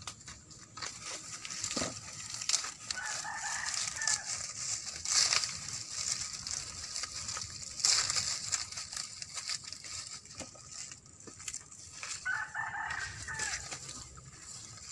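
A rooster crowing twice, once about three seconds in and again near the end, each crow about a second and a half long. Under it, dry corn leaves and husks crackle and rustle as they are handled.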